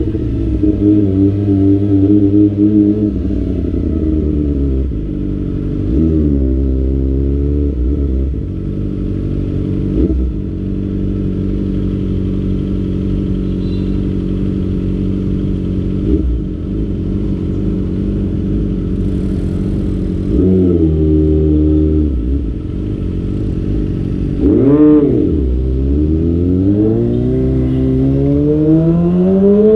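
Kawasaki ZX25R's four-cylinder engine running, its pitch dropping and climbing as it is revved and shifted. A quick sharp rev blip comes about 25 seconds in, then a long steady rise in revs near the end.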